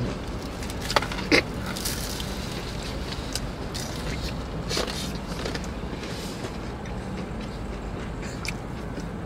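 Steady low hum inside a car cabin, with scattered small clicks and crackles as two people eat takeout food from a plastic clamshell container.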